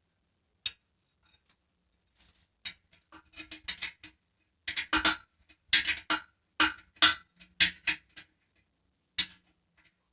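Irregular metallic clinks and taps, a quick run of them thickest in the middle and the loudest about seven seconds in, many with the same short low ring. They sound like hard metal parts being handled or knocked together.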